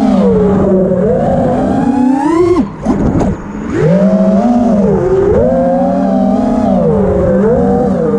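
FPV quadcopter's motors and propellers whining, the pitch constantly rising and falling with the throttle. About two and a half seconds in the whine sweeps up, then drops away and briefly goes quieter as the throttle is chopped, picking back up about a second later.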